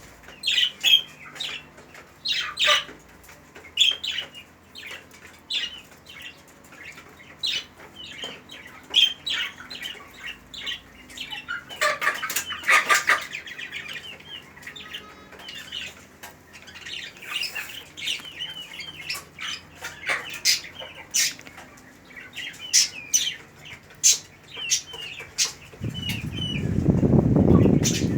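Small birds chirping and squawking with short, repeated high calls, mixed with wing flapping and scattered clicks. A louder flurry comes about halfway through. A low rumble swells and fades near the end.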